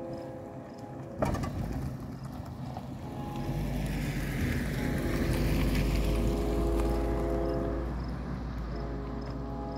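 Electronic grade-crossing bell (GS Type 2 E-Bell) ringing a steady, repeating tone. About a second in there is a sharp knock, and from about three and a half to eight seconds a vehicle passes with a rising and fading rush and low rumble that partly covers the bell.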